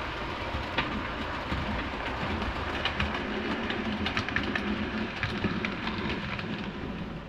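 OO gauge model train, an Accurascale Class 37/4 diesel locomotive hauling Hornby Mark 2 coaches, running along the track: a steady rumble of wheels on rail with a run of sharp clicks over the rail joints, thickest in the middle seconds.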